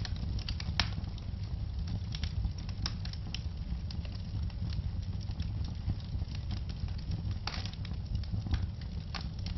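Wood fire crackling in a fireplace: scattered sharp pops and snaps over a steady low rumble, with a quick cluster of pops about three quarters of the way through.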